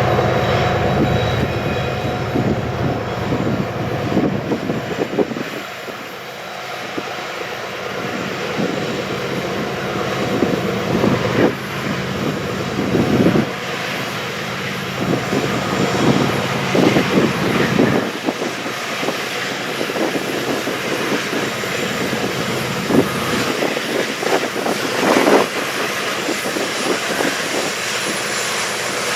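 Freight train rolling past with a steady rumble and irregular clanks and knocks from its cars; the low hum of a diesel engine fades after the first few seconds.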